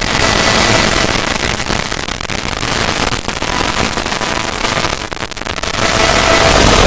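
A 'void' sound effect: a loud, harsh rushing noise full of fine crackles. It thins out and crackles more sparsely for a few seconds in the middle, then swells back up near the end.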